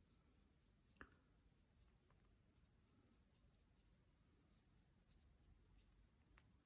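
Faint scratching of a colored pencil shading on paper, with two soft ticks, one about a second in and one near the end.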